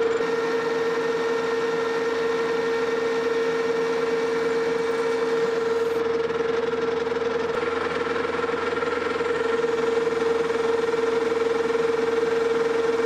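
Metal lathe turning a steel bar: the machine runs steadily with a strong, even whine as the tool takes a 0.100-inch cut down the bar's diameter.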